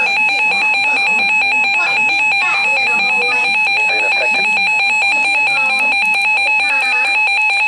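Emergency Alert System attention signal: a loud, steady electronic two-tone alarm that holds one unchanging pitch throughout, with faint voices underneath.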